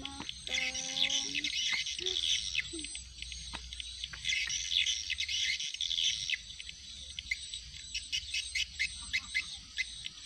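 Birds chirping and calling over a field, with insects, and a short low held call in the first second and a half. From about three-quarters of the way in, a regular chirping pulses about three or four times a second.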